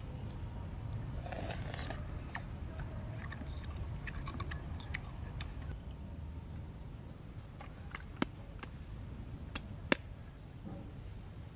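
Scattered small sharp clicks of thin sticks and hands knocking against cooked field snail shells as the meat is picked out, with a short rustle a little over a second in and two louder clicks near the end.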